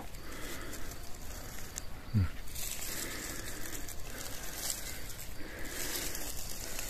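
Faint rustling and crackling of moss, dry leaves and twigs as chanterelles are pulled from the forest floor by hand. About two seconds in there is a brief low falling sound.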